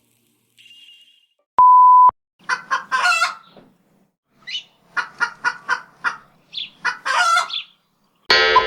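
A loud half-second beep at a single steady pitch, then a chicken clucking in a run of short calls, ending in a longer, drawn-out call about seven seconds in. A rich musical tone starts just before the end.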